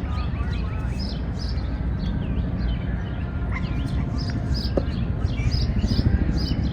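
Outdoor park ambience: many small birds chirping and twittering over a steady low rumble.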